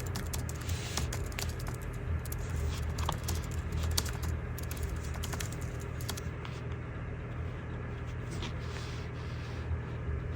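Handling noise: rapid light clicks and taps of fingers on a phone in its silicone case. The clicks come thick at first and thin out after about six seconds, over a steady low hum.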